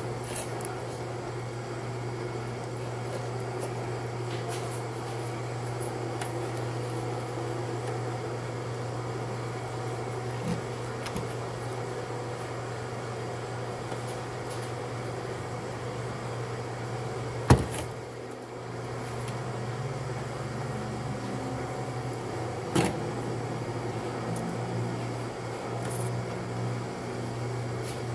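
Steady low mechanical hum of a large commercial smoker running. A sharp knock sounds a little past halfway, and a smaller one about five seconds later.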